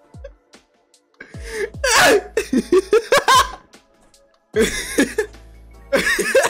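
A man laughing hard in fits: a long burst of laughter starting about a second in, then two shorter bursts near the end.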